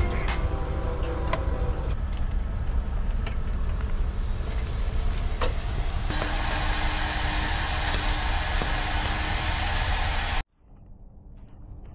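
Heavy wrecker's diesel engine running, joined by a hiss that builds from about three seconds in and grows loud. The sound cuts off abruptly near the end, leaving a quieter rumble.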